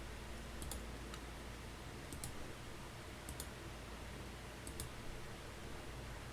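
About five sharp computer mouse clicks, spaced a second or so apart, over a low steady hum.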